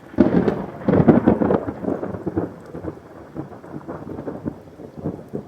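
A thunderclap: a sudden crackling crash that rolls on as a rumble, loudest in the first second and a half, then slowly dying away.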